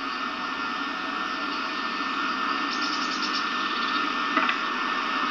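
Steady hiss and hum of an old camcorder videotape soundtrack, with a few faint high ticks about three seconds in and a single click a little after four seconds.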